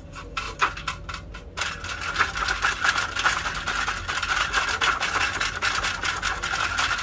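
Paintbrush scrubbing dust out of the sheet-metal base and spring mechanism of a mechanical bathroom scale. There are a few separate strokes at first, then from about a second and a half in a fast, continuous scrubbing of bristles on metal.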